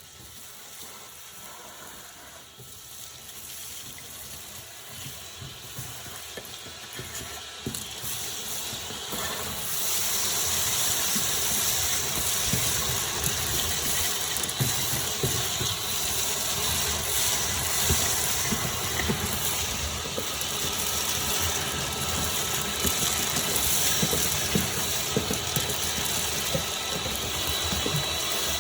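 Vacuum cleaner running, growing louder over the first ten seconds and then holding steady with a high motor whine and scattered rattles of debris being sucked up.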